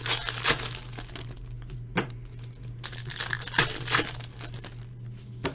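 Foil wrapper of a 2017 Bowman Chrome baseball card pack crinkling as it is handled and torn open by hand, with a few sharper crackles.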